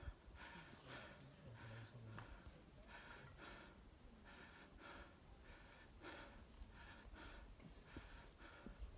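Faint, quick breathing close to a phone microphone: short hissy breaths in and out, about one and a half a second.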